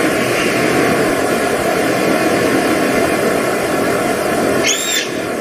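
Steady rushing noise, with one short rising-and-falling whistled call near the end.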